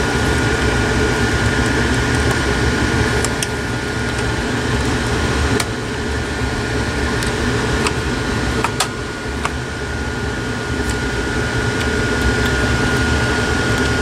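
Air purifier fan running steadily with a thin high whine, loud in the room. A few light clicks about halfway through as plastic parts are handled inside the computer.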